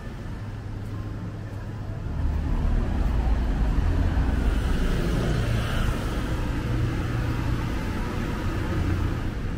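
City street traffic: a vehicle's low engine rumble grows louder about two seconds in and passes close by, over steady road noise.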